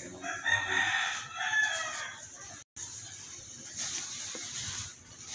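A single drawn-out animal call, about two seconds long, starting just after the beginning, with a fowl-like crowing character.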